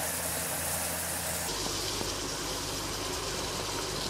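Beef and vegetables with tomato puree frying in a hot pan: a steady sizzle, with a low hum under it.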